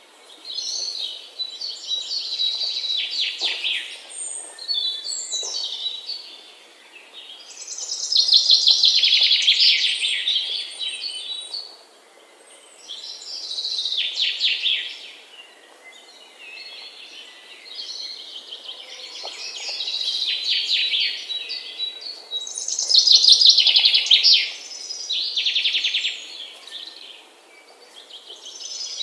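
Small birds chirping and twittering in quick runs of high notes, coming in waves every few seconds.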